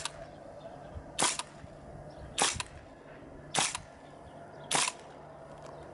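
CAA M4 Carbine gas blowback airsoft rifle firing single shots, five sharp cracks evenly spaced a little over a second apart.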